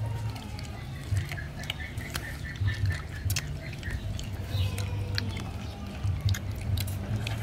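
Several people chewing and biting into crispy roasted chicken wings: scattered sharp crunches and clicks of crisp skin and bone breaking between the teeth.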